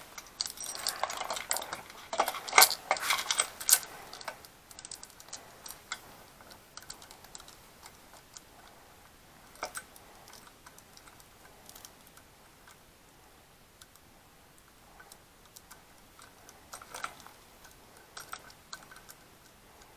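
Saw chain of a Sterwins chainsaw clicking and rattling as it is handled and seated around the guide bar: a quick run of metallic clicks in the first few seconds, then scattered ticks.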